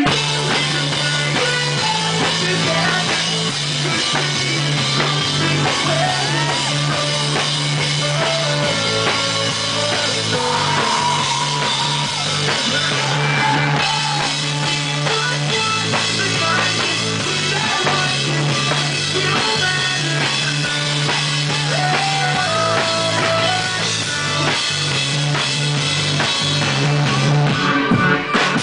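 Rock band playing live: a drum kit keeps a steady beat under a bass line and guitar, with the bass notes changing every second or two.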